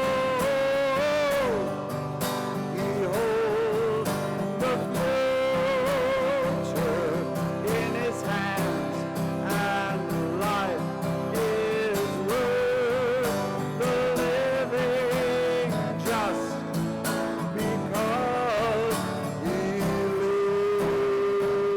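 Slow music: a melody of long held notes with vibrato over sustained accompanying chords.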